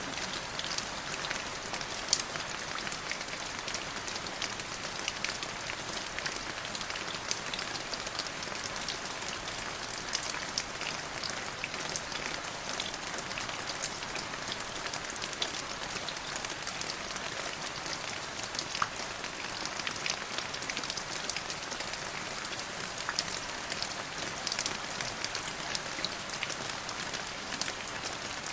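Steady rain falling: an even hiss dotted with many close, sharp drop ticks, a louder single drop about two seconds in.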